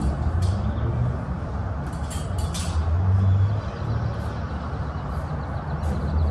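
Metal strap hardware clicking and rattling a few times, mostly between about two and three seconds in, as a pallet jack is strapped to the cargo-wall track of a box truck. Under it runs a steady low rumble.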